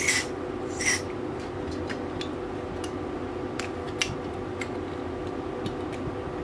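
An aerosol spray can with a straw nozzle gives two short sprays onto stripped airsoft pistol parts, one right at the start and one about a second in. Light clicks and taps of small plastic and metal parts being handled follow.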